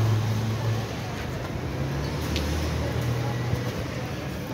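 Street traffic: a steady low engine hum from passing and nearby vehicles that swells and eases, with a few faint clicks.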